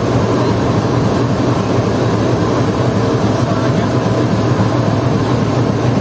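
Diesel-electric locomotive running as it moves slowly past at close range, its engine a steady low hum. Heavy rain hiss is mixed in.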